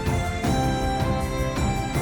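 Background music: sustained instrumental notes changing about every half second over a steady low pulse.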